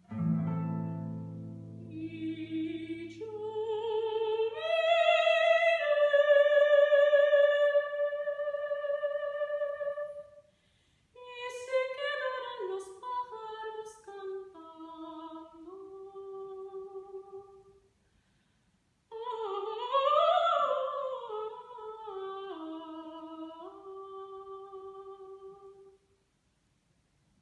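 Soprano singing three slow phrases with vibrato, separated by short breaths. The first climbs to a long held high note and the last settles on a held low note. The last low notes of a classical guitar ring out and fade just as she begins.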